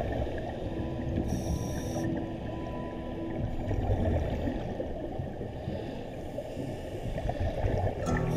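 Muffled underwater ambience picked up by a diver's camera: a dense low rumble and gurgling of water, with faint steady tones underneath.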